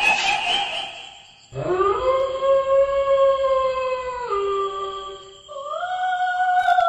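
A dog howling: two long drawn-out howls. The first rises into a held note and then steps lower; the second begins about five and a half seconds in and slowly slides down. A hiss fades out during the first second or so.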